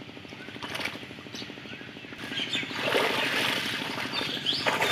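Water splashing and sloshing as a cast net is pulled up out of a shallow pond, growing louder a little over halfway through. A steady low engine hum runs underneath.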